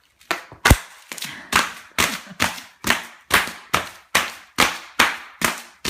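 Bubble wrap popping under a child's jumping feet: a steady run of sharp cracks, a little over two a second, starting just after a brief hush.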